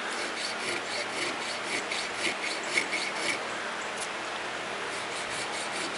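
Hand file cutting decorative file work into a knife's fitting clamped in a vise: a run of short rasping strokes, cut on the push stroke.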